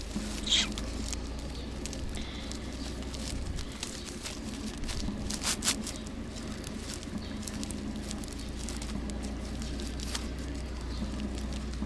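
Red plastic strap crinkling and rustling as it is wrapped and knotted around a stick: a continuous run of small crackles, with a couple of louder sharp snaps about half a second in and midway, over a steady low hum.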